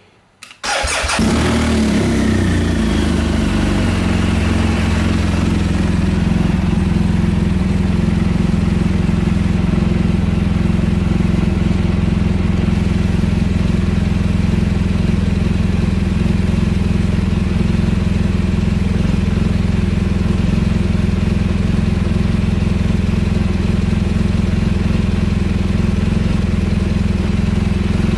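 BMW R1200GS Adventure's boxer twin engine cranked on the electric starter, catching about a second in and then idling steadily.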